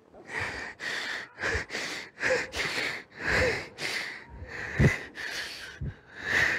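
A man sobbing during prayer recitation: a run of ragged, breathy gasps and sniffs, about two a second, some with a short catch of voice.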